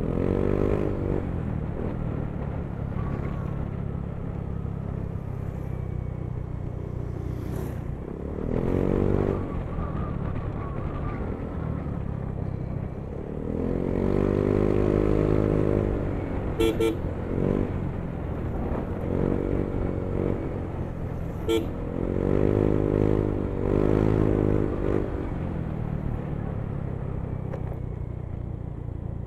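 Yamaha Mio i 125 scooter's single-cylinder engine running while riding, its pitch rising and falling several times as the throttle is opened and eased off. Two short horn toots come about two-thirds of the way through.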